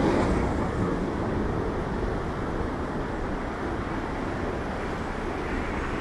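Heavy ocean surf from big storm-swell (ressaca) waves: a wave breaks loudly at the start, then settles into a steady rush of surf.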